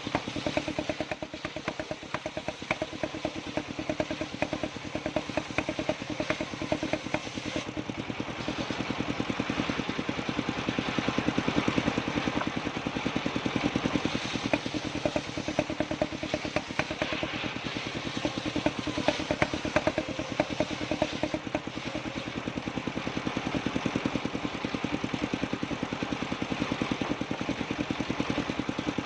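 Engine of a circular sawmill running steadily with a rapid, even beat, getting somewhat louder now and then.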